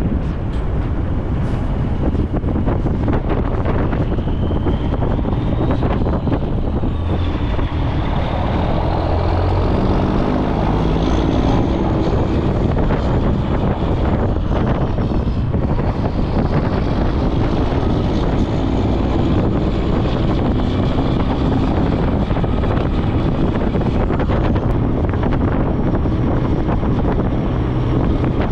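Heavy tow truck driving, its engine and road noise steady and loud with wind on the microphone. A faint high whine rises and falls in pitch several times.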